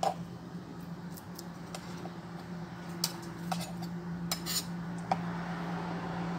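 A table knife scraping and tapping against a plastic measuring cup and bowl as minced chicken is scooped and levelled off: a scatter of light clicks and scrapes, the loudest about three and four and a half seconds in. A steady low hum runs underneath.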